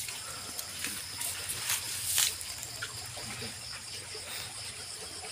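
Flood-swollen stream water trickling and flowing, with a few brief splashes about one to two seconds in.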